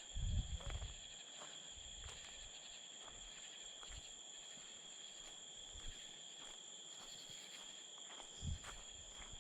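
Night insect chorus, crickets or katydids holding one steady high-pitched trill, with low rumbling bumps from the microphone being handled about half a second in and again near the end.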